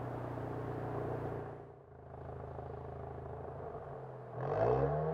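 Lexus IS200t's turbocharged 2.0-litre four-cylinder idling through an aftermarket catted downpipe and valved cat-back exhaust. It turns quieter about two seconds in with the exhaust valve closed, then gives one quick rev near the end.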